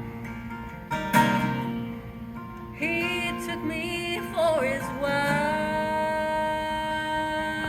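Solo acoustic guitar strummed while a woman sings. Her voice comes in about three seconds in, slides in pitch, and then holds a long note.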